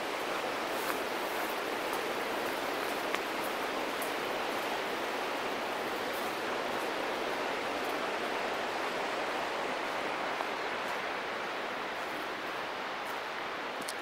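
Rushing water in a mountain gorge, a steady even hiss, with a few faint ticks on top.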